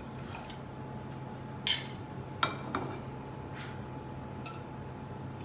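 Milk being poured between a plastic bottle and a steel saucepan, with three sharp clinks of the metal pan in the middle and two fainter ones after, over a steady low hum.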